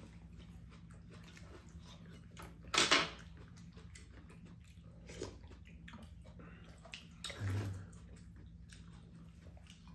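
People slurping hot soup from spoons: a short loud slurp about three seconds in and another, softer one about seven and a half seconds in, over a faint steady low hum.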